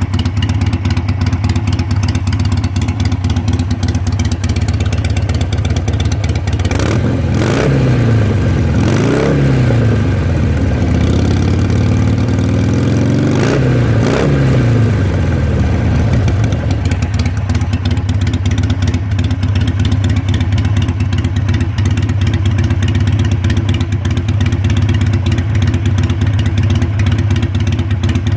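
Harley-Davidson Sportster 883's air-cooled V-twin engine, breathing through new mufflers, idling. It is blipped up and down a few times around the middle, then settles back to a steady idle.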